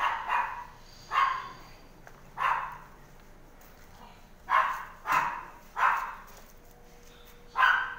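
A dog barking: about eight short barks at uneven intervals.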